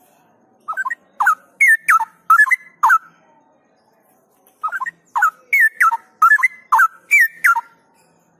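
Straw-headed bulbul (cucak rowo) singing: two loud phrases of quick whistled notes that slide up and down, each lasting two to three seconds, with a pause of about a second and a half between them.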